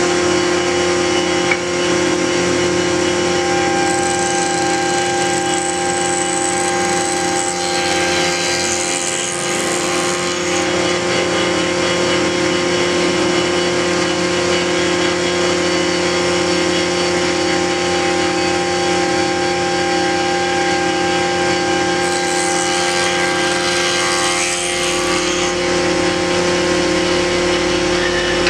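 Workshop circular-saw machine running steadily, its motor and blade giving a constant hum and whine with a hiss over it. Twice, around 8 and 23 seconds in, the hiss turns rougher for a couple of seconds.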